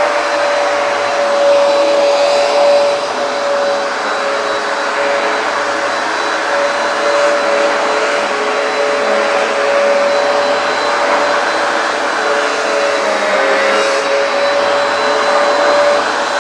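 Hoover PowerDash carpet cleaner running: a steady suction-motor rush with a whine that wavers slightly in pitch. The tight-backed rug restricts its airflow.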